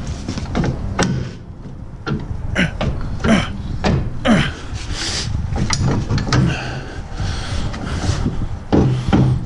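A series of sharp metallic knocks and clanks from wrenches, bolts and radius rod parts being handled, some close together and some a second or more apart.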